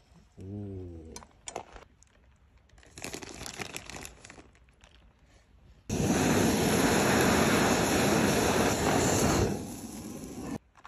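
Handheld butane cooking torch blasting steadily for about three and a half seconds, starting about six seconds in, searing the top of a pile of shredded cheese. Before it come quieter rustles as the cheese goes on.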